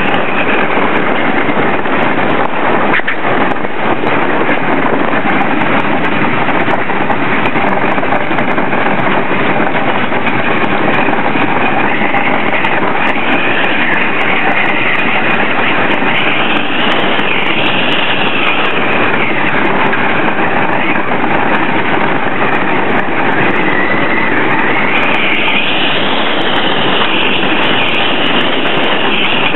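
Intamin wooden roller coaster train running over its track, heard from the front seat: a loud, steady rumble of wheels on the track, with a higher whine that rises and falls in pitch in the second half.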